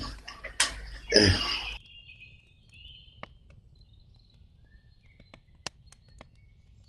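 Faint bird chirping with a few scattered sharp clicks.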